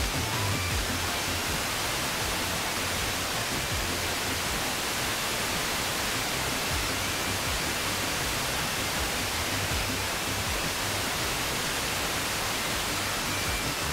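FM radio static: a steady hiss from a receiver tuned to 92.2 MHz. The distant sporadic-E signal from Fiji is too weak to rise clearly above the noise.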